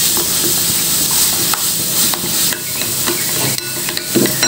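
Metal spoon stirring thin flour-and-water batter in a glass bowl: steady wet scraping with scattered small clinks of the spoon against the glass.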